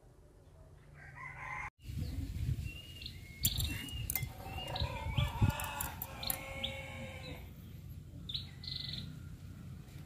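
Chickens and small birds calling in the background, a run of short clucks and chirps over a low rumble, starting about two seconds in and thinning out near the end.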